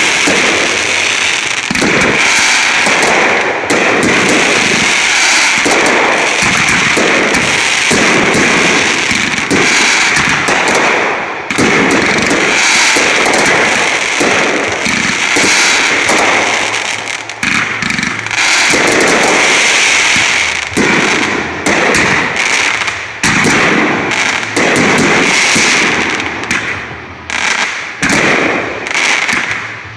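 Fireworks going off in a dense, almost unbroken run of rapid crackling bangs, with a few brief lulls.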